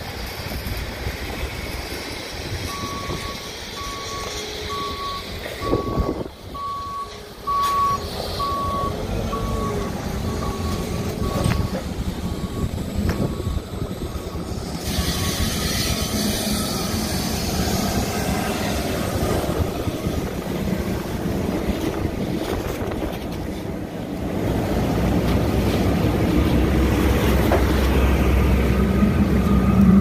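A vehicle's reversing alarm beeping on one steady pitch, a little over once a second, for about ten seconds before fading away, over continuous outdoor noise. A low engine rumble swells near the end.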